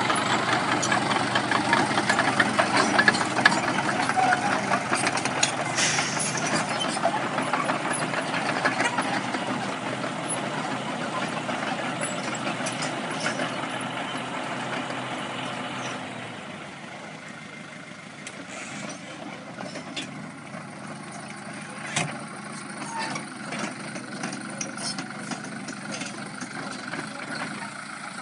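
Diesel farm tractors running, with dense engine noise that drops off sharply about 16 seconds in. After that the engine sound is quieter, with scattered knocks and clanks from the machinery.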